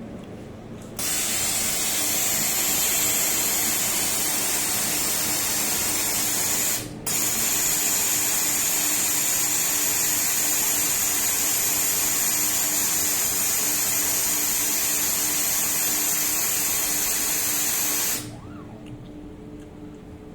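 1500 W fiber laser welding machine at work on a brass connector, giving a loud steady hiss. The hiss starts about a second in, breaks off briefly around seven seconds, and stops near the end, over a faint steady low hum.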